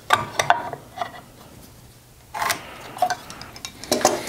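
Light metallic clinks and taps as hand tools are handled and set against the timber during marking out, a handful of irregular strikes with a brief ring.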